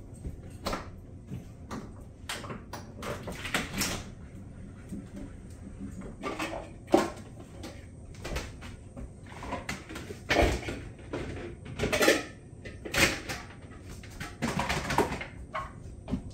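Kitchen clatter of dishes being put away: irregular clinks and knocks of plates and plastic dishware, with wooden cupboard doors opening and closing. The loudest knocks come about ten and twelve to thirteen seconds in.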